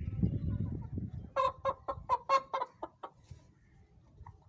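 A chicken squawks in a rapid run of about eight short clucks over a second and a half, starting about a second and a half in, as it is grabbed and lifted by hand. A low rustling scuffle comes before the clucks.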